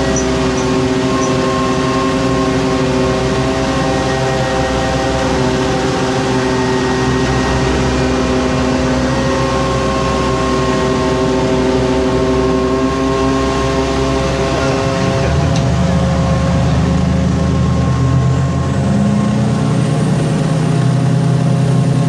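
Agent boat's engine running steadily at low revs as it holds alongside a tanker, with a deeper drone joining about two-thirds of the way in.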